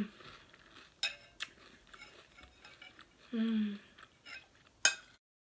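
A spoon clinking against a cereal bowl a few times, with one sharp click near the end, and a short hummed "mm" of approval about three and a half seconds in. The sound cuts off to dead silence just before the end.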